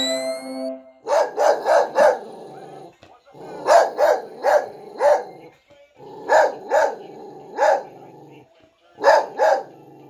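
A dog barking in bursts of two to four sharp barks with short pauses between them, about a dozen barks in all. Held musical notes sound for the first second, before the barking starts.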